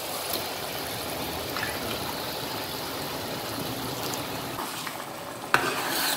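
Masala gravy bubbling in a steel kadhai as boiled chickpeas are ladled in with a wet splash and stirred. A single sharp knock near the end.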